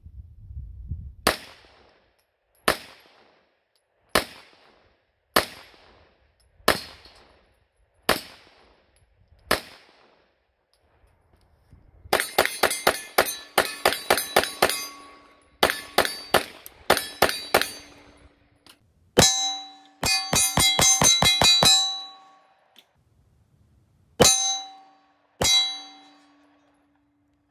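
Gunshots from a Glock pistol fitted in a CAA Micro Roni carbine chassis: seven single shots a little over a second apart, then three fast strings of shots and two last shots near the end. Later hits on the steel silhouette target ring with a clear, lingering metallic tone between shots.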